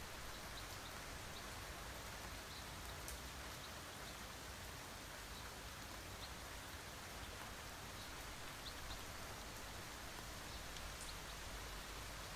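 Steady rain: an even hiss, with small ticks of single drops now and then.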